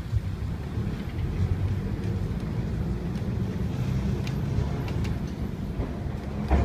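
Heritage streetcar rolling along its track, heard from aboard: a steady low rumble from the wheels and running gear, with a few sharp clicks, the loudest near the end.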